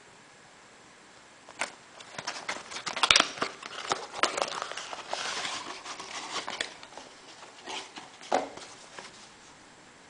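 Cardboard box being handled and opened by hand and a cloth drawstring pouch slid out of it: papery rustling, scraping and sharp clicks and taps. They start about one and a half seconds in, with the sharpest click about three seconds in, and die away near the end.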